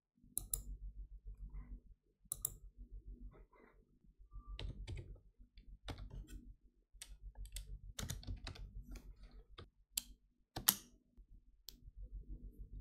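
Computer keyboard keys being typed in short, irregular runs, with a few sharper mouse clicks among them, over a low steady hum.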